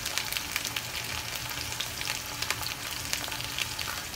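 Boneless chicken searing in a hot frying pan: a steady sizzle with frequent small crackles.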